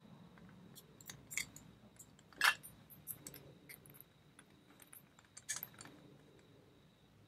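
Scattered light metallic clicks and clinks of small metal tools against a pin-tumbler door lock, with two sharper clicks about two and a half and five and a half seconds in.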